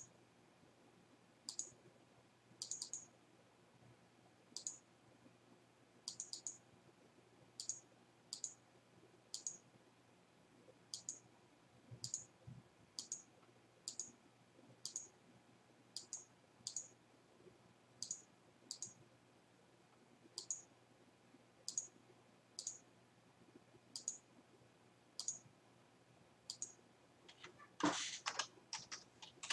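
Computer mouse clicking, single and double clicks every second or so. Near the end comes a quick run of louder keyboard keystrokes.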